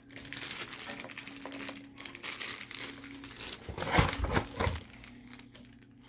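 Plastic packaging crinkling as it is handled during unboxing, with a louder flurry of crinkling about four seconds in.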